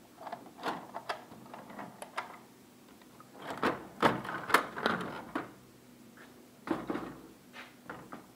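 Plastic clicks and knocks from a laser printer's front door being opened and its toner cartridge being pulled out. The loudest stretch is a cluster of knocks and scraping about halfway through, with one more knock near the end.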